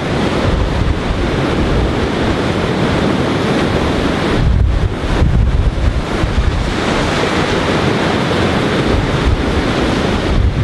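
Wind buffeting the microphone over surf washing against a concrete tetrapod breakwater: a loud, rough, unsteady rush that eases briefly twice near the middle.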